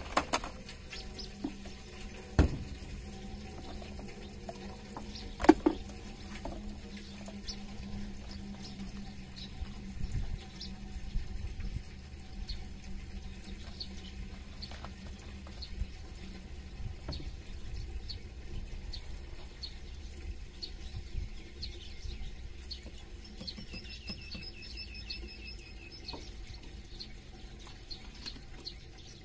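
Countryside ambience of small birds chirping and twittering in short scattered notes, with a longer repeated trilling call in the last third. A few sharp knocks about two and five seconds in, over a low steady rumble.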